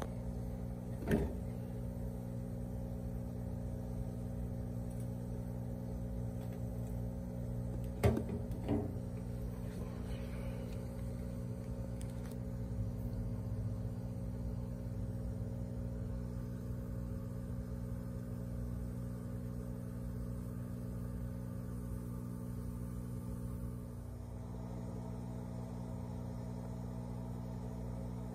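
Steady low electrical hum of aquarium equipment, several even tones held without change. It is broken by a sharp click about a second in and two more close together around eight seconds in.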